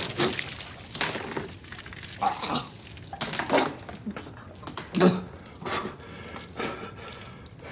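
A man vomiting and retching in several short, wet, gagging heaves, each a second or so apart.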